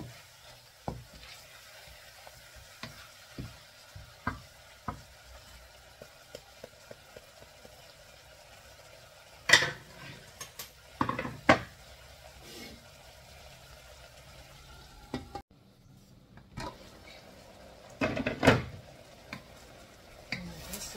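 Raw chicken pieces sizzling in a steel wok, with a wooden spatula scraping and knocking against the pan as they are stirred. There are louder bursts of clatter about halfway through and again near the end.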